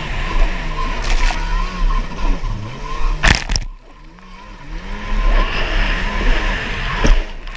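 Stand-up personal watercraft engine running at racing throttle, its pitch rising and falling, over the rush of wind and spray. Two sharp knocks cut in, a little over three seconds in and again near the end; right after the first, the engine drops off briefly before picking back up.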